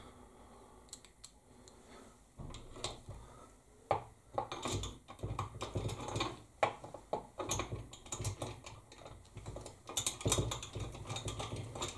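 Irregular small metallic clicks and scraping as a slotted round-bar tool turns the end of a long steel rod through a bench grinder's housing, starting about two seconds in.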